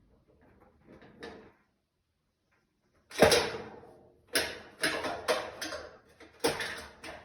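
A loud bang with a short ringing tail about three seconds in, then a run of sharp knocks and clatters of hard objects.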